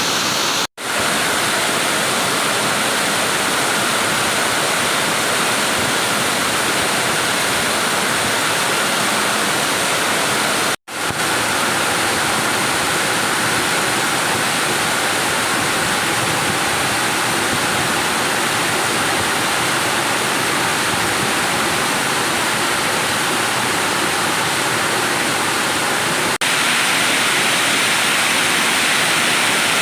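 Waterfall rushing: a loud, steady roar of falling water, cut off by two very brief gaps, about a second in and about eleven seconds in.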